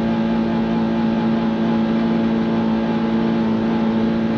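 Mazda Miata's four-cylinder engine held at high revs against the rev limiter, a loud, steady high-pitched engine note.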